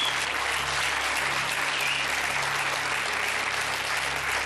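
Studio audience applauding steadily, greeting a correct answer on a quiz show.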